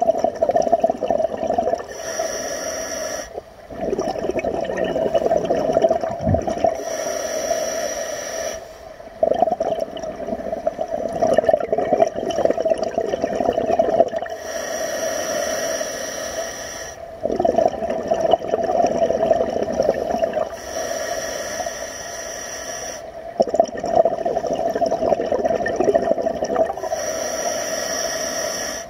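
Scuba diver breathing through a regulator underwater: long bubbling rushes of exhaled air alternate with shorter hissing inhalations that carry a thin high whistle, about five breaths in a slow steady rhythm.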